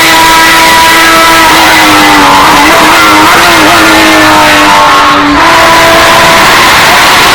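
Porsche 911 RSR racing car's flat-six engine running hard at high revs, its note holding with slight wavers, with a brief break about five seconds in, typical of a gear change. The recording is heavily bass-boosted and distorted.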